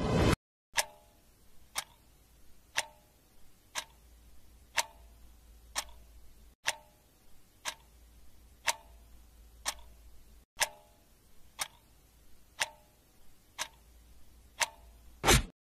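A clock ticking steadily about once a second, every other tick carrying a short ringing tone like a tick-tock. A brief loud burst opens it, and a single loud hit comes just before the end.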